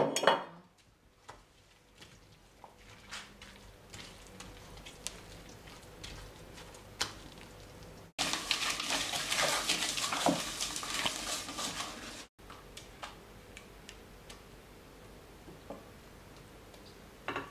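Plastic spatula stirring and scraping through soft mash in a stainless-steel pot, with scattered clicks and knocks against the metal. A busier, louder stretch of scraping runs from about eight to twelve seconds in.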